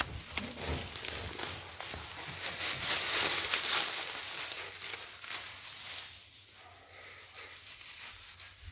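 Dry leaf litter rustling and crackling as something moves through it, with many small crunches, loudest about three seconds in and fading after about six seconds.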